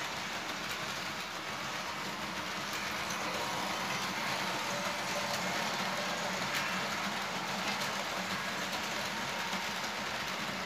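Märklin HO model trains running on metal track, a steady rolling whir of wheels and motors with faint clicks from the rail joints.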